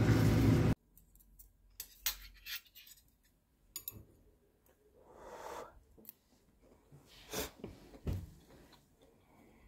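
A loud steady mechanical whirr with a low hum cuts off abruptly under a second in. Then scattered light clicks and clinks of metal chopsticks and a metal spoon against a ceramic bowl while eating, with a few soft swells between them.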